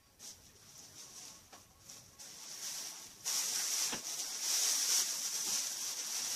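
Crinkling and rustling of wrapping as items are handled and unpacked, growing louder about three seconds in.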